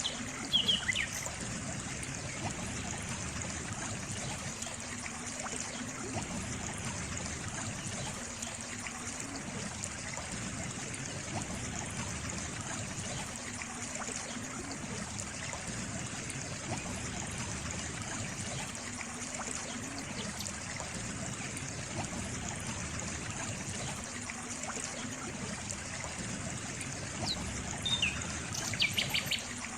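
Stream water trickling steadily. A few short, high chirps come just after the start and again near the end.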